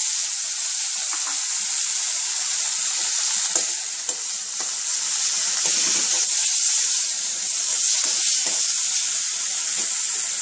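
Tomato puree sizzling steadily in hot oil in a wok, with a steel spoon stirring and scraping through it.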